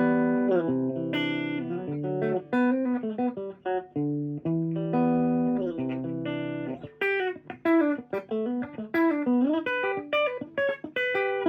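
1960 Fender Jazzmaster electric guitar on its bridge pickup, played clean through a 1959 Fender Champ valve amp: chords for the first seven seconds or so, then a quick run of single notes. The tone is a little buzzy from the guitar's low, worn frets and nut.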